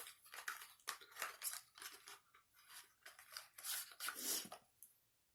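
Product packaging being handled and opened by hand: irregular crinkling, tearing and small clicks from a cosmetics box as a lipstick is unpacked.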